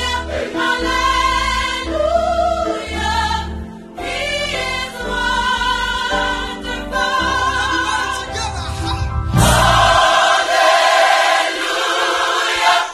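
Music with singing voices over a pulsing bass beat, getting louder and fuller about three quarters of the way through.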